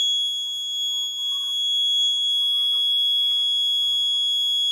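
Piezo alarm buzzer on an Arduino accident-detection board, sounding one continuous high-pitched tone: the accident alert after a detected crash.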